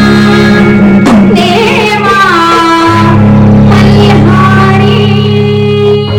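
A woman singing a traditional Marathi gondhal devotional song to Khandoba, with ornamented, gliding melody lines over sustained electric organ chords that change about three seconds in.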